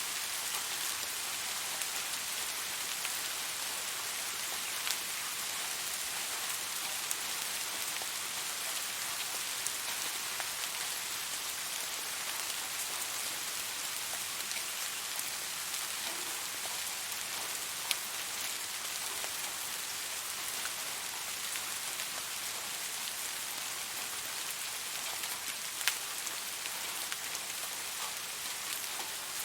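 Steady rain falling, an even hiss with occasional sharp drip clicks standing out, three of them clearest.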